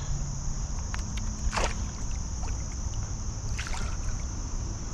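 Water splashing as a hooked smallmouth bass thrashes at the surface, with two sharper splashes about one and a half and three and a half seconds in, over a steady low rumble of moving water.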